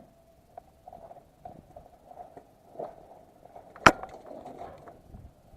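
A single sharp crack about four seconds in, typical of an airsoft gun firing a shot, over faint rustling and small ticks from movement in dry brush.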